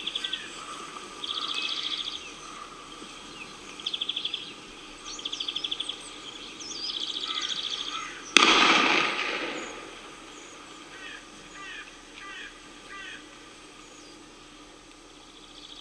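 A single gunshot from a hunting gun about eight seconds in, the loudest sound, its report echoing away over a second or so. Before it, repeated short, high, rapidly pulsed bird trills, and after it a few faint bird chirps.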